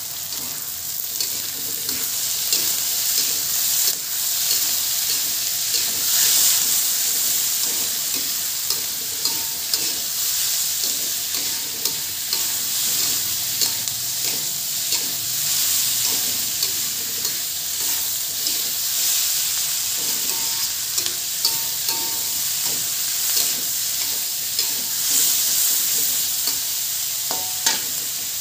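Sliced onions, chilies and dried shrimp sizzling in hot oil in a wok, with a steady hiss, while a metal spatula stirs and tosses them, scraping and clicking against the pan many times.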